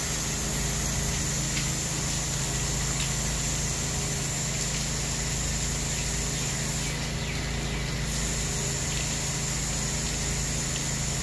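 Pressure washer running steadily, its motor and pump droning under the constant hiss of the high-pressure water jet spraying house siding.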